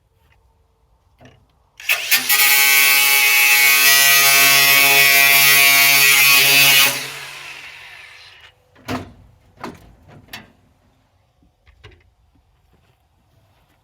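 Handheld angle grinder running for about five seconds with a steady motor tone and a harsh hiss from the disc on the combine's metal, then released and spinning down. A few separate knocks follow.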